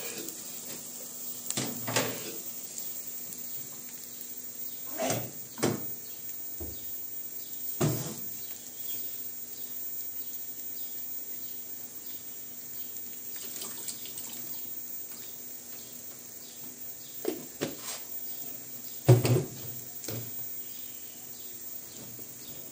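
Kitchen containers and utensils being handled: scattered short knocks and clinks, the loudest a little over three-quarters of the way through, over a steady hiss.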